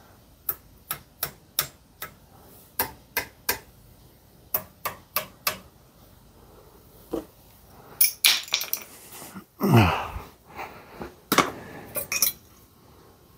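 Sharp metallic clicks and ticks, two or three a second, from a hydraulic bottle-jack press straining against a harmonic balancer as a rubber ring is forced into it under heavy pressure. About ten seconds in comes a drawn-out creak that falls in pitch, with clustered clanks just before and after it.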